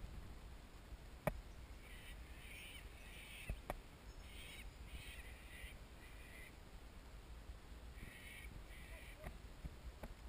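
A bird calls several times in three short bunches, faint against quiet outdoor background, with a couple of faint sharp clicks in the first few seconds.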